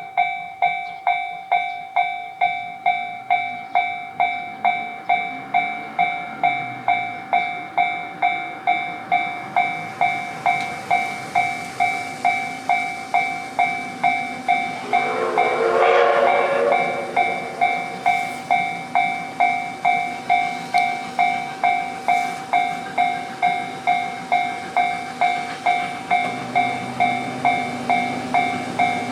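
Railway level-crossing alarm bell dinging steadily at a little over two strikes a second. About halfway through, a train whistle blows for about two seconds, and a low train rumble grows near the end.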